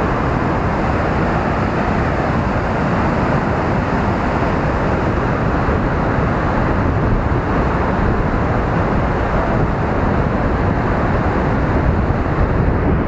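Fast-flowing river water rushing past the bank: a steady, loud noise with no pauses.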